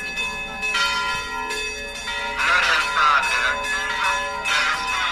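Church bells ringing, struck again and again with each stroke ringing on. People's voices rise over the bells about halfway through and again near the end.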